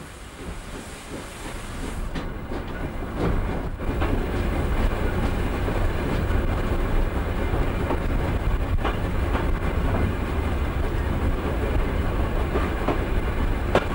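Steam locomotive running along the track: a steady rumble and clatter of wheels and running gear that builds over the first few seconds, with a few sharp clicks later on.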